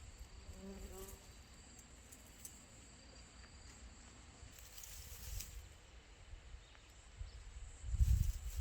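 Insects, likely crickets, chirping steadily in a high thin tone, with low wind rumble on the microphone that swells near the end.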